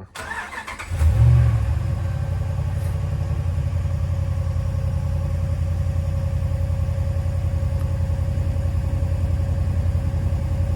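A 5.7 L Hemi V8 in a 2012 Dodge Ram 1500 fires up about a second in with a brief rev, then settles into a steady idle. The engine still carries a cylinder 6 misfire that a swapped coil pack has not cured.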